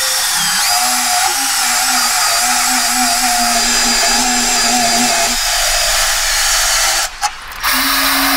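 Cordless drill spinning a small wire-wheel brush against car body metal, scrubbing off paint to bare the factory spot welds. It stops briefly about seven seconds in, then starts again.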